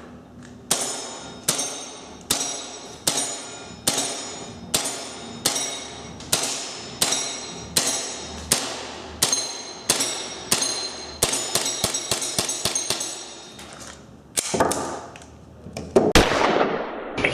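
Gas blowback airsoft pistol firing single shots, about one every 0.8 seconds, then a quicker string of shots after about 11 seconds. Each shot is a sharp crack followed by a metallic ring.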